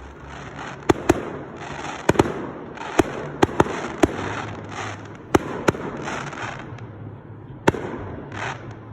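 Fireworks display: an irregular run of about a dozen sharp bangs from bursting shells, several close together in pairs, with patches of hiss between them.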